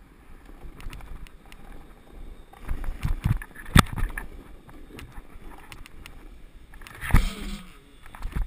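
Snowboard sliding and scraping over packed snow as the rider slows to a stop, with scattered knocks and thumps. The loudest knock comes about four seconds in, and a longer scrape comes near the end.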